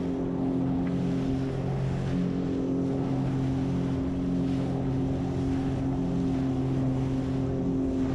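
Jet ski engine running steadily at speed, an even drone with several steady tones, over rushing water and wind on the microphone.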